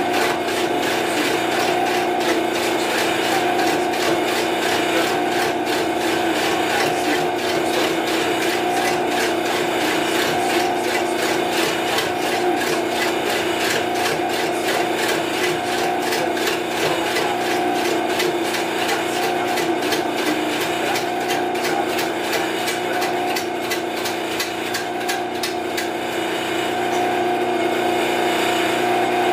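Benchtop metal lathe turning a 16-inch block of wood: the machine runs with a steady hum while the tool bit takes an interrupted cut, knocking against the uneven wood in a fast, even rhythm.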